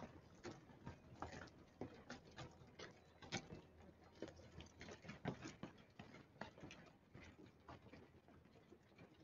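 Near silence with faint, irregular clicks and ticks over a low hiss.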